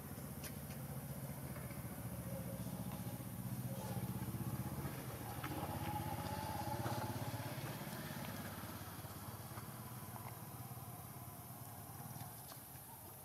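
An engine running in the background, growing louder over the first six or seven seconds and then fading, as a passing vehicle does.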